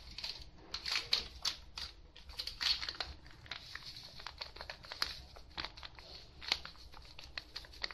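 Plastic packet of seasoning powder crinkling in quick, irregular crackles as powder is poured from it into a clay mortar.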